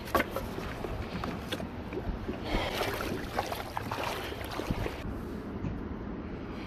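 Water splashing and lapping around a kayak, with a few louder irregular splashes near the middle.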